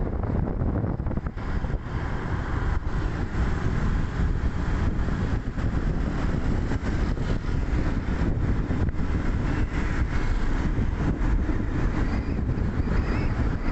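Steady wind and road noise from travelling along a road in a moving vehicle, a dense low rumble with wind buffeting the microphone.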